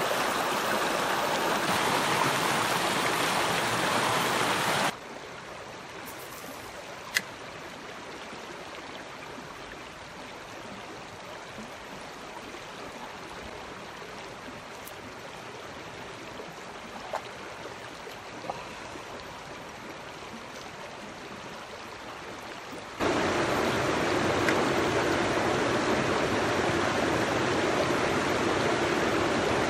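Mountain river rushing over rocks in riffles, a steady rush that is loud at first, drops quieter about five seconds in and turns loud again near the end. A single sharp click sounds about seven seconds in.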